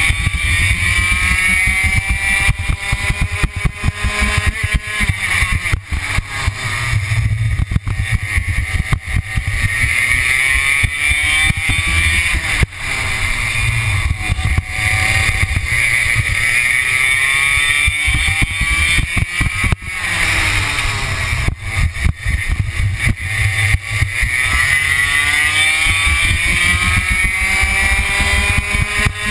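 Racing kart's two-stroke engine heard onboard at full throttle, its pitch climbing through long acceleration runs and falling off sharply twice as the driver lifts for corners.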